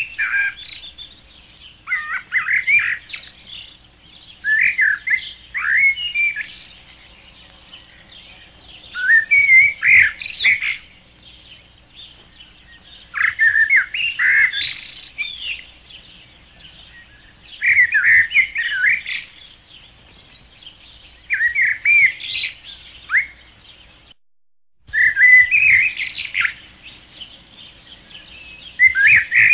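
A songbird singing short, warbled phrases about every three to four seconds. The sound briefly cuts out once.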